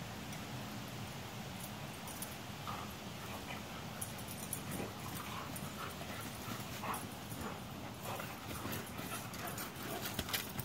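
Two dogs play-fighting, with short high calls every second or so and a cluster of clicks near the end.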